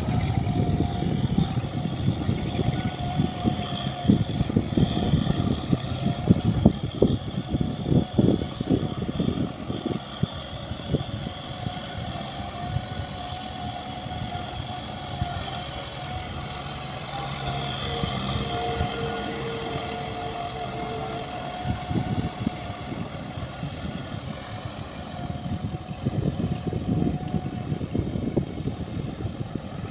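Kubota farm tractor's diesel engine running steadily under load as it drags a tiller through a flooded rice paddy, with a steady whine over the low engine rumble.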